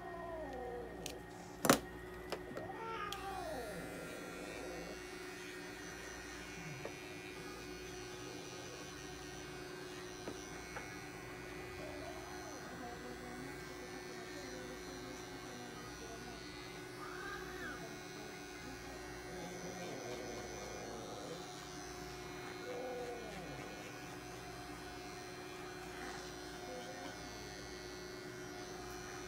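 Small cordless pet trimmer buzzing steadily as it clips the fur between a cat's paw pads. Near the start nail clippers snap once sharply through a claw, the loudest sound, and the cat meows a few times.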